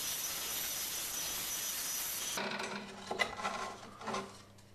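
Proxxon electric scroll saw cutting 9 mm plywood, a steady rasping buzz from the reciprocating blade. The saw stops abruptly about two and a half seconds in, followed by a few light knocks and rattles over a faint low hum.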